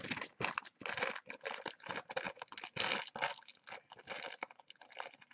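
Figurine packaging being opened and handled: cardboard box and plastic wrapping crinkling and rustling in quick, irregular bursts.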